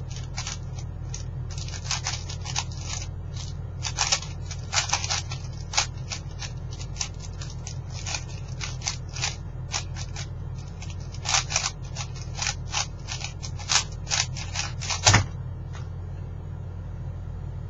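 Plastic 4x4x4 speed cube being turned fast, a rapid irregular run of clicking and clacking layer turns. About 15 seconds in, a loud thump as the cube is set down and the hands slap the StackMat timer pads to stop the solve. After that only a steady low hum remains.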